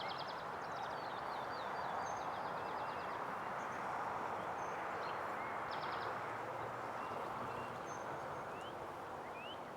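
Wild songbirds singing: a rapid trill of repeated high notes over the first two seconds or so, another short trill near the middle, and a few short rising chirps near the end. Under them a steady hiss of outdoor background noise.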